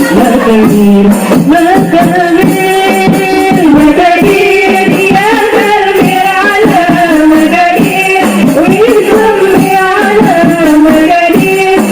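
Qasidah rebana music: hand-struck rebana frame drums keep a steady rhythm under a sung, ornamented melody.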